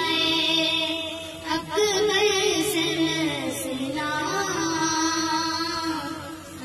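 Two girls singing together a Shia lament (noha) for Ali Akbar into a handheld karaoke microphone, in long drawn-out notes whose pitch wavers and slides, with a brief breath about a second and a half in.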